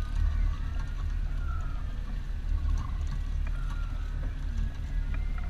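Low, steady rumble of a fishing boat's engine running at trolling speed, with faint thin wavering whines now and then.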